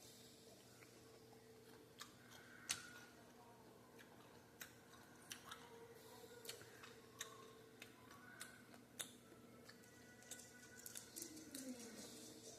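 Quiet chewing of crispy beer-battered fried crab, with scattered sharp crunches and clicks spread irregularly throughout.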